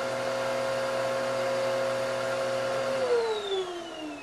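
Vacuum cleaner running with a steady motor whine, then switched off about three seconds in, its pitch falling as the motor spins down.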